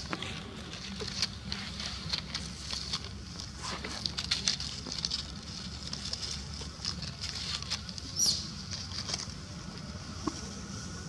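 Dry leaf litter rustling and crackling in short scattered bursts as a baby macaque wriggles on its mother on the ground, over a steady high hiss. One short high chirp about eight seconds in is the loudest moment.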